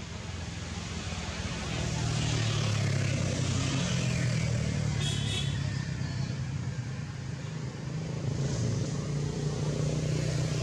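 A motor vehicle engine running with a steady low hum, growing louder over the first two seconds and then holding steady.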